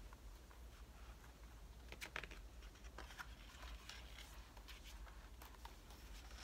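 Near silence over a low steady hum, with faint paper rustles and soft clicks about two and three seconds in as a page of a hardcover picture book is turned.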